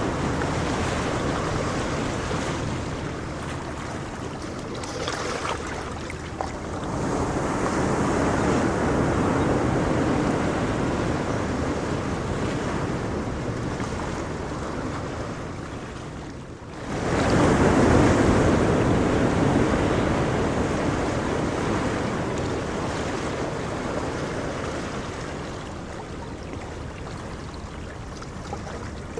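Ocean waves surging and washing in a continuous rush of surf. The sound swells about seven seconds in, and again more loudly just past halfway, right after a brief sharp drop.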